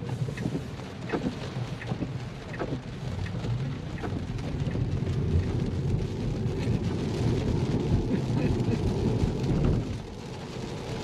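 Rain tapping on a Tesla's roof and windshield, heard from inside the cabin. The wet hiss of tyres on the road builds as the car pulls away and picks up speed, then eases near the end.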